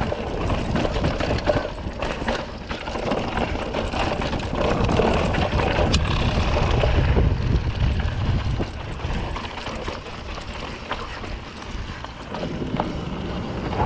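Specialized Rockhopper 29 mountain bike rolling slowly down a rough, potholed dirt trail: tyres on loose ground and a steady clatter of knocks and rattles from the bike over the bumps.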